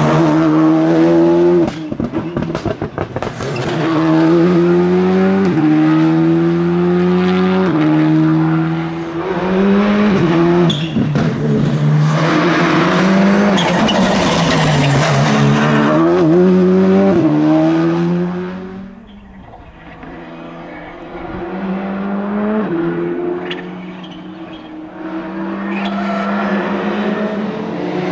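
Škoda Fabia RS Rally2's turbocharged 1.6-litre four-cylinder engine driven flat out through tarmac bends, revs climbing and dropping sharply with rapid gear changes. A burst of crackles on lift-off comes about two seconds in. The car fades away about two-thirds through, then an engine builds again as the car comes back into the bend.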